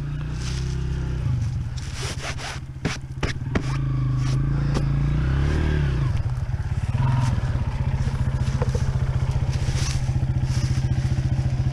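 Honda CRF230F air-cooled single-cylinder four-stroke trail bike engine running. It varies in speed for the first six seconds, with a few sharp knocks about three to five seconds in, then settles into a steady, evenly pulsing idle.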